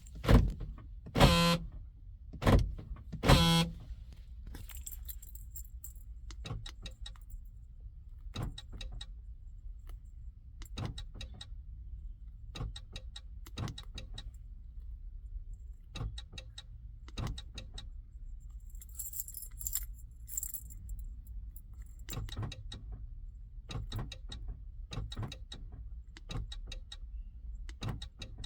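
Clicks and clunks from a minivan's power door locks being tested, with four louder knocks in the first few seconds, then many small scattered clicks and the jangle of the keys on the key ring twice.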